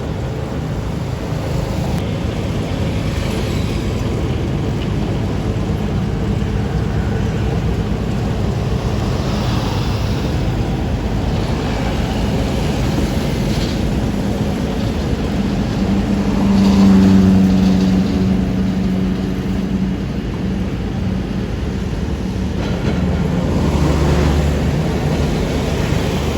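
Diesel engines of asphalt paving machinery running steadily, with an engine note that swells louder about seventeen seconds in and again near the end.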